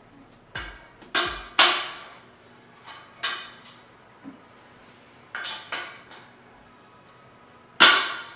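Caster wheels being pushed by hand into the leg sockets of a Cougar Armor Pro gaming chair's five-star base: a series of about seven sharp knocks and clicks as the stems seat, the loudest near the end.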